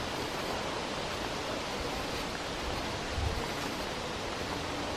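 Steady rushing outdoor noise of wind and rustling leaves, picked up unprocessed by a camera's built-in microphone, with a brief low wind rumble on the mic about three seconds in.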